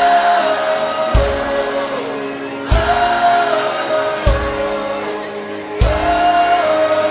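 Concert crowd singing a long 'oh' refrain back in unison over a live band, held notes stepping in pitch, with a drum hit about every second and a half.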